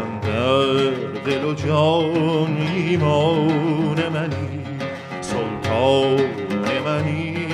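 Traditional Persian music: a man's voice singing a wavering, ornamented melody, accompanied by a plucked oud and a daf frame drum struck in a steady rhythm.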